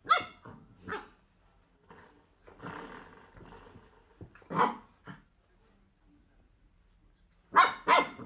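A puppy barking in short high yips: a few spaced-out single barks, then two louder ones close together near the end, with quieter growling between.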